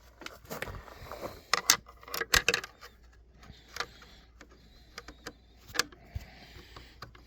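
Irregular clicks and clacks of hand tools and small parts being handled against the outboard's plastic and metal, with a quick cluster of louder knocks about two seconds in.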